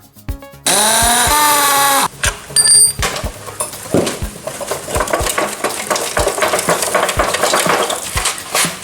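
Hand and power tool noises on metal: a loud whine lasting about a second and a half near the start, then dense scraping and clinking. Background music with a steady beat plays throughout.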